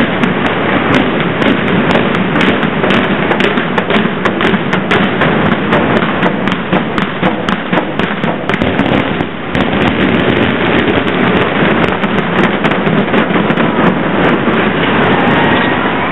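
Building implosion: a dense, rapid string of sharp cracks from demolition charges firing in sequence, starting suddenly and running on for many seconds over a continuous heavy rumble as the concrete office building comes down.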